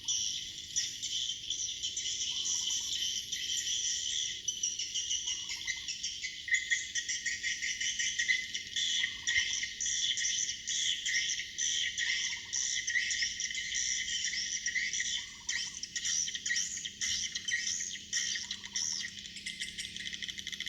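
Many swiftlets twittering in a dense, continuous high chatter, with a short lower note repeating about every three seconds.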